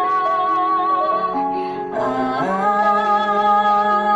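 A woman singing a slow ballad over an instrumental backing. She holds long notes with vibrato: one note ends a little past a second in, and a new phrase slides up into another held note about halfway through.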